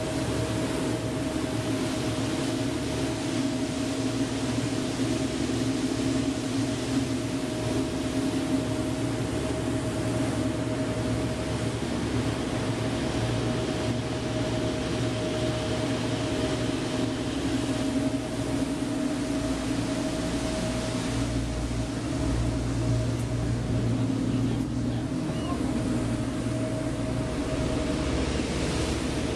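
A tour boat's engine running steadily underway, a constant drone with a steady whine over it, mixed with wind and water noise.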